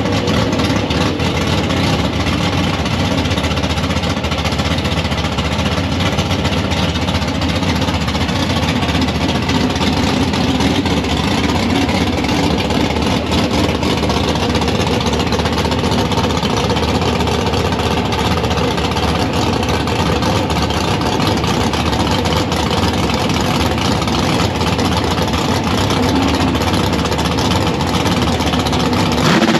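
Drag-racing car engines running at the track, a loud, steady mass of engine sound with no clear launch; it steps up a little near the end as an engine comes up in revs.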